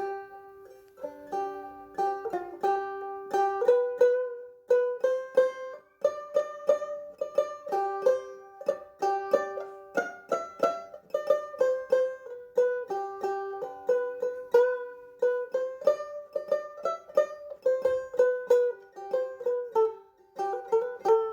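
Background music: a melody picked on a plucked string instrument, its notes struck in quick succession, each ringing briefly and dying away.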